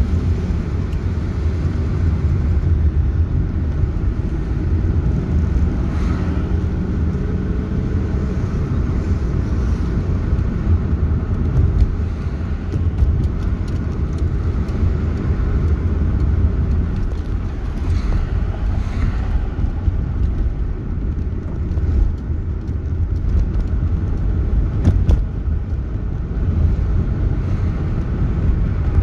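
Road noise heard inside a moving car: a steady low rumble of engine and tyres. An engine hum stands out over the first several seconds.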